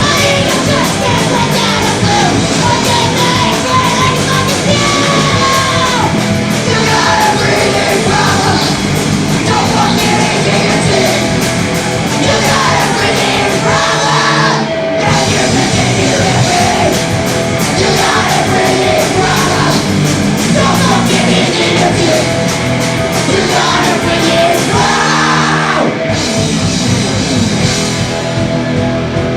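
Punk rock band playing live: loud guitars and drums under a shouted, yelled vocal, with two brief breaks in the drive, about halfway through and again near the end.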